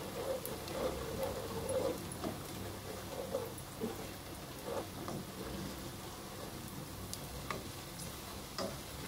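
Sliced onions frying in oil in a pot, stirred with a plastic slotted spoon that scrapes and clicks against the bottom and sides, over a light sizzle. The scraping is busiest in the first two seconds, then thins to scattered clicks.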